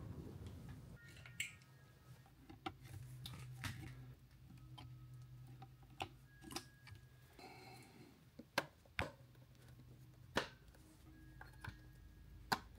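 Plastic cable plugs being handled and pushed into the sockets of a CNC controller box: a string of small sharp clicks and taps, the loudest in the second half, over a faint steady low hum.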